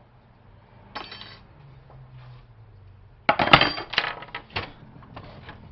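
Metal parts clattering and clinking. After a faint knock about a second in, a run of sharp metallic knocks starts a little past three seconds and lasts about a second and a half.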